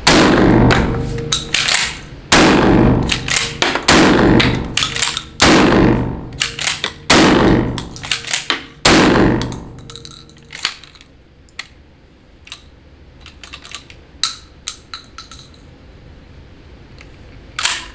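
Six 12-gauge shotgun shots from a gas-operated MAC 1014, about one and a half seconds apart, echoing in an indoor range, with metallic clicks of the action between them. After that come scattered clicks and clacks of the gun being handled. The shotgun is firing standard low-brass target loads that it is not cycling reliably.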